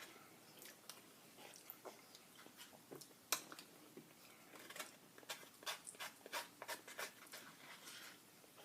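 Quiet close-up chewing and mouth sounds: a run of faint wet clicks and smacks, thickest past the middle, with one sharper click about three seconds in.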